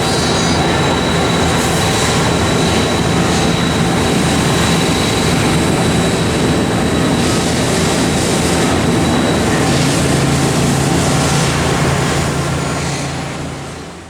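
Mazak Quick Turn NEXUS 250 MS CNC turning center running, a steady mechanical noise with a thin high whine and a low hum. The whine stops about two-thirds of the way through, the hum changes pitch at about the same time, and the sound fades out near the end.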